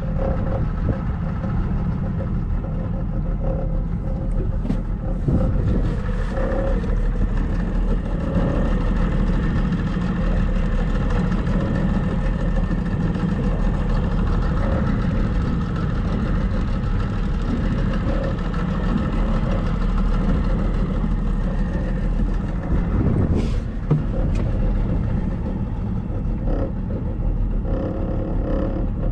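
Engine of a small used pleasure boat running steadily as the boat cruises at low speed.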